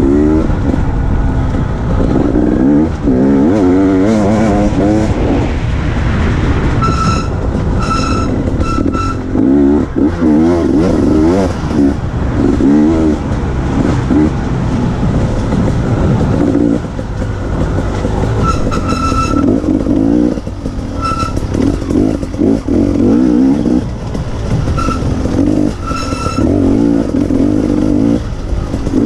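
Dirt bike engine revving up and down again and again as the throttle is opened and closed, with a few short high-pitched tones now and then.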